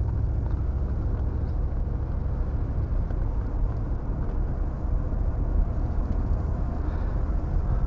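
Mercedes SL500's M119 V8 running at a steady cruise, mixed with tyre and road noise, heard from inside the cabin. The engine runs smoothly with no misfire or hesitation now that its distributor caps have been replaced.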